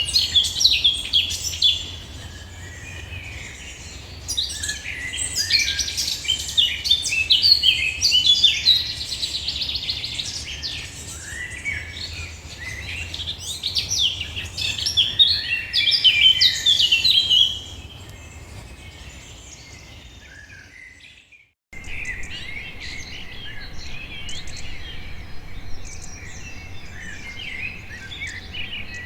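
Songbirds chirping and singing, many rapid high notes overlapping. About 21 seconds in the sound cuts out for a moment, then fainter chirping resumes.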